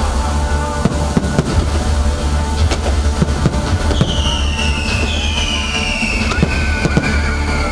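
Fireworks going off overhead: a rapid, irregular string of bangs and crackles over a deep rumble, with two long falling whistles starting about halfway through.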